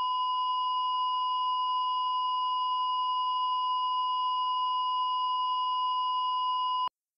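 A steady electronic beep tone at one high pitch, held for about seven seconds and then cutting off abruptly.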